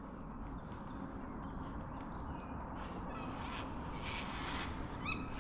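Birds calling faintly along the river over a steady low background rumble, with one short, louder bird call near the end.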